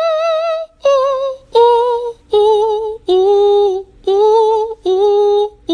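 A high singing voice holding a run of short notes with vibrato, about seven of them with brief gaps between, stepping down in pitch over the first few and then staying lower. It is a gag voice dubbed over lion footage in place of a roar.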